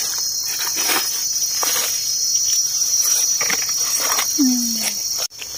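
Steady high-pitched chorus of forest insects, with dry leaf litter rustling underfoot as someone walks.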